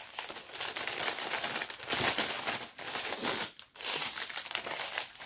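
Thin plastic packaging crinkling and rustling as a chain of small bags of round diamond-painting drills is folded up and pushed back into its wrapper, with a short pause about three and a half seconds in.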